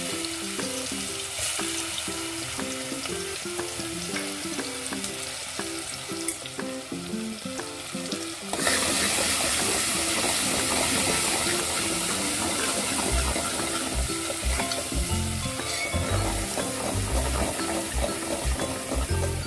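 Garlic, green chilli and cumin paste sizzling in hot oil in a hammered metal pot, stirred with a steel ladle. The sizzle gets suddenly louder about eight and a half seconds in.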